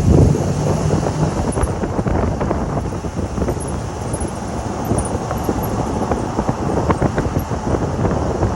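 Car rolling slowly, with tyre and road noise and wind buffeting the microphone; a low drone fades out in the first second or so, and no held brake squeal stands out.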